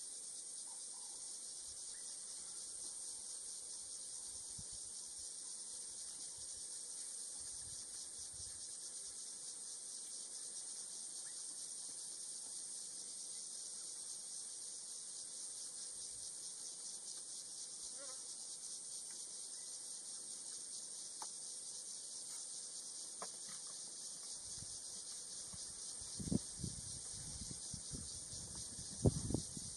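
Steady, high-pitched insect chorus in the dry bush, an unbroken shrill drone. A few low knocks sound in the last few seconds.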